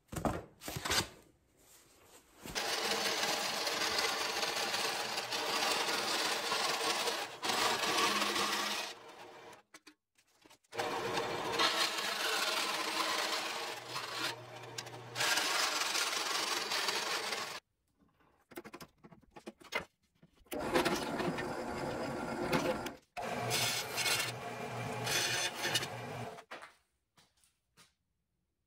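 Vertical band saw cutting a 1/8-inch aluminium sheet, running in three long stretches that each start and stop abruptly.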